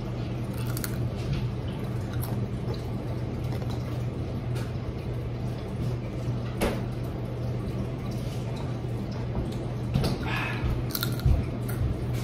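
A child chewing crunchy potato chips, with a few separate short crunches and mouth sounds over a steady low hum.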